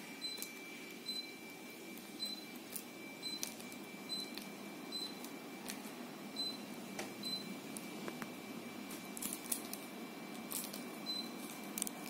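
Daikin FTNE35MV14 split air conditioner's indoor unit giving short high beeps, about ten at uneven intervals, each acknowledging a press on its wireless remote. Soft clicks of the remote's buttons sound over the steady hiss of the unit's fan.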